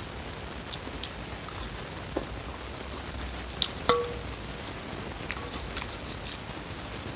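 Eating noodle soup: small wet clicks of chewing and slurping, with fork and spoon tapping the bowl. One sharp metal clink on the bowl about four seconds in rings briefly.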